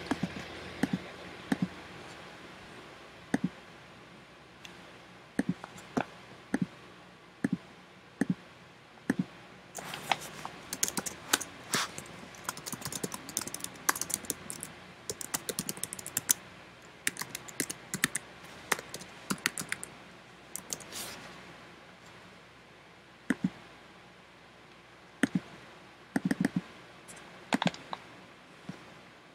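Typing on a laptop keyboard: scattered single keystrokes and clicks, with runs of fast typing about ten seconds in, again near the middle and near the end.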